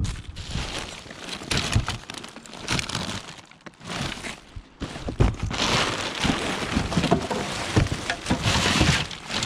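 Hands rummaging through a pile of dumped junk: rustling and crinkling with many small knocks and clatters, busier and louder over the second half.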